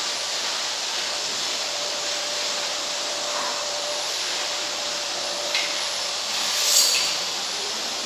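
A steady, even hiss of room noise with a faint hum in it. A small click comes about five and a half seconds in, and a brief louder rustle near seven seconds.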